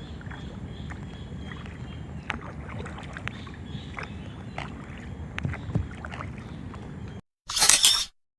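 Kayak paddling on open water: a steady low wash of water with scattered light clicks and splashes from the paddle strokes. It cuts off abruptly about seven seconds in, followed by a short loud burst of noise.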